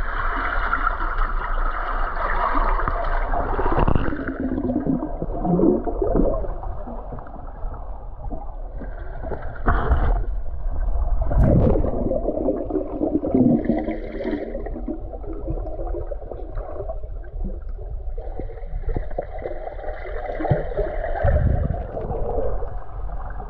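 Muffled underwater gurgling and sloshing of water around a camera held just below the surface, with several knocks and bumps along the way.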